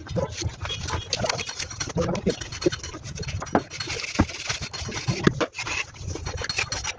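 Mason's steel trowel scraping and rubbing wet cement plaster in a run of short, uneven strokes and taps, with voices in the background.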